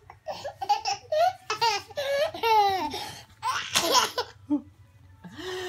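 A toddler laughing hard while being tickled: a run of short, high-pitched giggles that fall in pitch, then a loud breathy burst of laughter about four seconds in.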